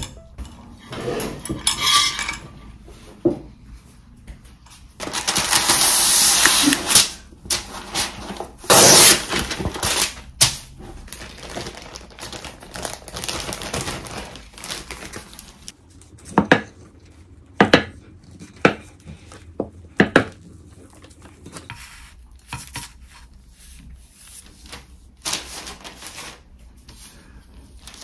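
Kitchen handling sounds: a plastic zip bag and parchment paper crinkling and rustling, with sharp clicks and clinks of utensils and tableware.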